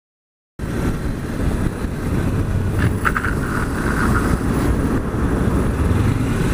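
Wind rushing over the microphone with the engine of a 2014 Kawasaki Ninja 300 running underneath as the motorcycle is ridden along, starting after about half a second of silence.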